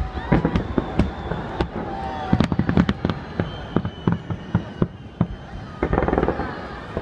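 Fireworks display: sharp bangs at irregular intervals, with dense runs of rapid crackling about two and a half seconds in and again near the end.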